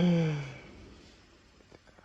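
A person's short voiced sigh, falling in pitch and fading away over about half a second.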